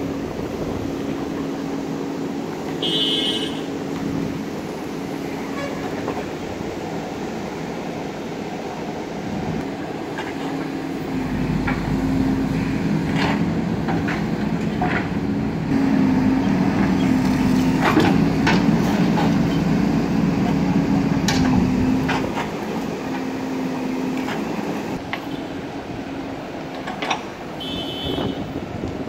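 Diesel engine of an earthmoving dozer running steadily, then rising and working harder for about ten seconds in the middle, as under load pushing earth, before settling again. A short high-pitched beep sounds about three seconds in and again near the end.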